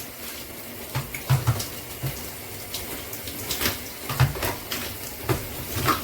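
Shower water spraying steadily, with several sharp knocks and clunks as the handheld shower head is handled and set back in its holder.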